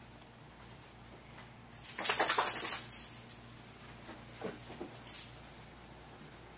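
A dog's metal collar tags jingling and rattling in a quick burst for about a second and a half, followed by a few lighter jingles and clicks.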